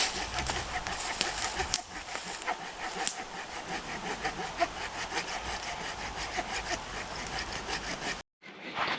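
Hand saw cutting through firewood with quick, rasping strokes; it cuts off suddenly about eight seconds in.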